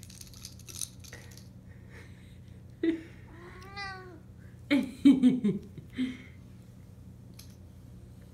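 A cat meows: one drawn-out call that rises and falls about three seconds in, then a louder, choppy run of calls around five seconds in. Light clicks and rattles of a plastic fidget spinner being batted across a hardwood floor come in the first second.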